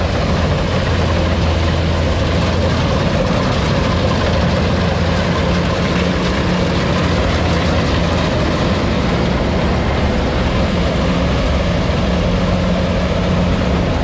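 Rice combine harvester running steadily as it cuts and threshes rice: a constant low engine drone with a dense mechanical noise above it.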